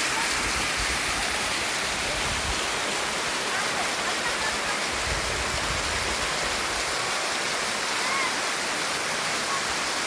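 Waterfall: a steady rush of falling water, with a few faint short chirps over it.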